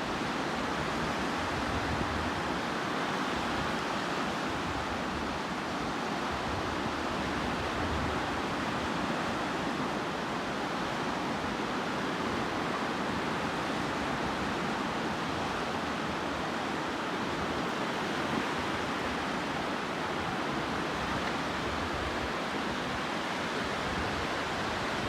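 Sea surf washing onto the shore, a steady rush of water noise with no distinct breaks between waves.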